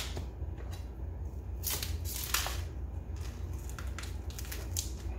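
Plastic sausage packaging crinkling and crackling in a series of short rustles as it is handled and slit open with a chef's knife.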